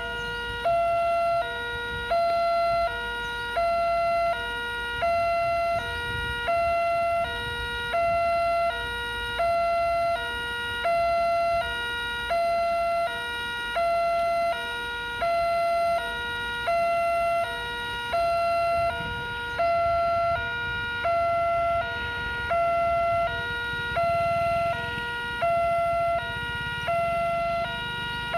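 Indonesian railway level-crossing warning alarm sounding a steady two-tone electronic hi-lo wail, switching pitch about every 0.6 s, warning road traffic that a train is coming.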